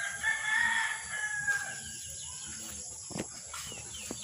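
A rooster crowing once, a long call of about two and a half seconds that holds its pitch and then falls away, over a steady high chirring of insects. A few faint knocks follow near the end.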